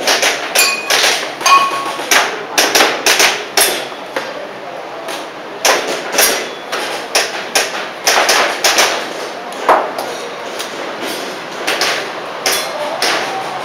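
Airsoft pistol firing a rapid, irregular string of sharp cracks, about two dozen in all, a few followed by a short ringing tone.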